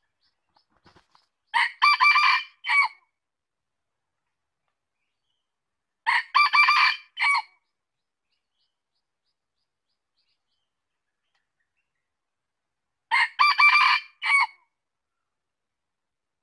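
Red junglefowl rooster crowing three times, several seconds apart. Each crow is short, about a second and a half, and broken into a few quick notes.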